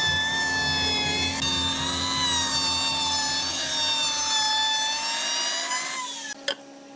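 Handheld router running and cutting along the edge of a wooden panel, its high motor whine wavering slightly in pitch under load. The whine drops away about six seconds in, followed by a single click.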